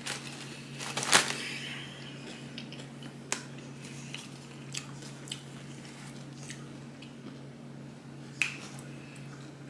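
Chewing crunchy potato chips close to the microphone, with a few sharp crunches, the loudest about a second in, over a steady low hum.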